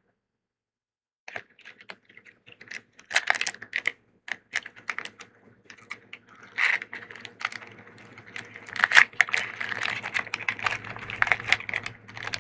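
Foil Pokémon booster pack wrappers being handled and crinkling: irregular clicks and crackles that start about a second in and get busier in the second half.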